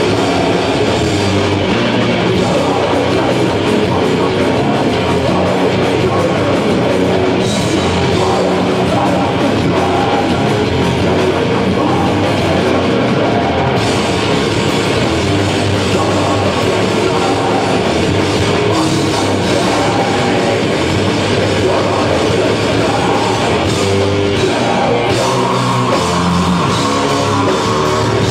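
Heavy metal band playing live: distorted electric guitar, bass guitar and a drum kit, loud and dense with no break.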